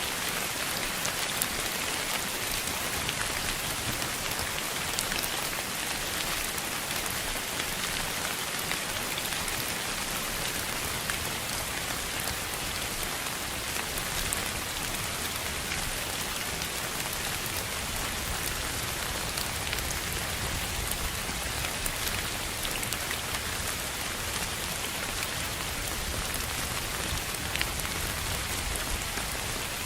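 Steady, unbroken hiss of sleep noise, presented as pink noise, with faint scattered ticks like drops in it.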